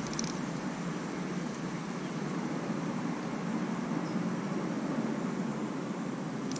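Steady low rumbling background noise outdoors, with no distinct sound standing out above it.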